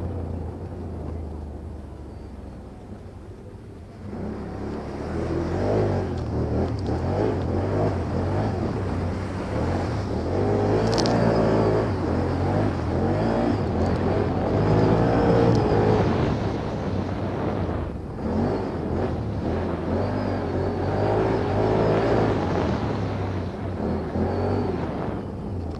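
Quad bike (ATV) engine running and revving up and down over and over, quieter at first and louder from about four seconds in. There is one sharp click about eleven seconds in.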